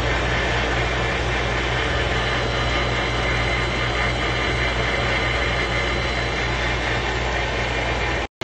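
Valve refacing machine running steadily, its motor humming under the rush of coolant flowing over the spinning valve and grinding wheel.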